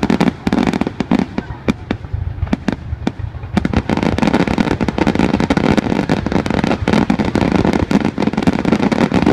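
Aerial firework shells bursting in quick succession: a barrage of sharp bangs over a continuous crackle, growing denser about three and a half seconds in.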